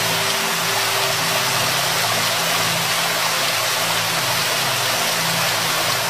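Waterfall rushing in a steady, even roar of falling water, with a low hum of held tones underneath.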